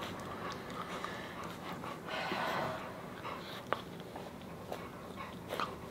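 Rottweiler puppy sniffing and licking at a person's face up close: soft breathy snuffles, a longer breathy rush about two seconds in, and a few small wet clicks.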